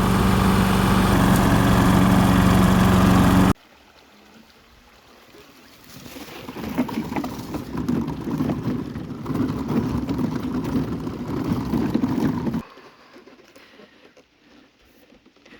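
Craftsman push mower's 190 cc Briggs & Stratton single-cylinder four-stroke engine running steadily under mowing, cut off abruptly about three and a half seconds in. After a short quiet gap, a rough rushing noise runs for about six seconds and stops suddenly.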